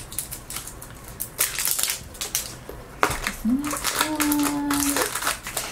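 Plastic blind-bag toy capsule being twisted and pulled apart and its foil packet handled: a run of small plastic clicks and foil crinkles. A person hums briefly, rising then held, about three and a half seconds in.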